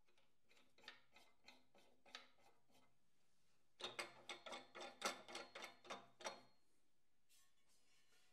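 Light clicks: a few soft ticks at first, then, from nearly four seconds in, a quick regular run of sharper clicks at about four a second for some two and a half seconds.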